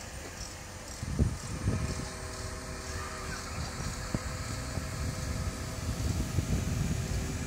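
Mobile crane's diesel engine running steadily as it holds a suspended prefabricated building module, a low rumble with a louder surge about a second in. A thin steady whine joins in just under two seconds in and holds.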